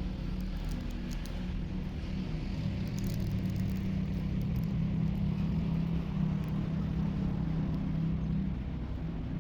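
A steady, low engine hum, like a motor vehicle running, swelling slightly in the middle and easing off near the end.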